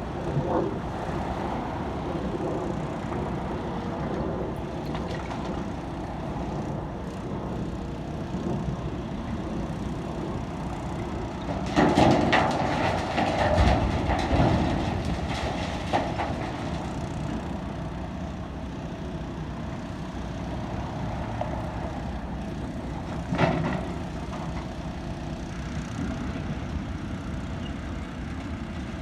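Excavator engine running steadily, with a few seconds of loud clattering and banging about twelve seconds in and one more bang near the end, typical of debris being scooped and dropped into a dump truck.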